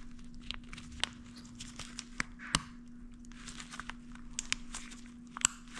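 Gloved hands handling a motorcycle's plastic wiring harness and electrical connectors: rustling with several sharp small clicks spread through.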